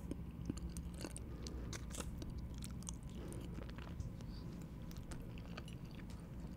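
Close-miked mouth sounds of a person chewing pasta: soft, wet, irregular little clicks and smacks.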